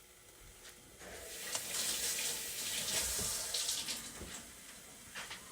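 Cooking oil poured into a hot pan that still holds a little water, sizzling and hissing. The hiss swells about a second in and fades near the end, with a few small clicks.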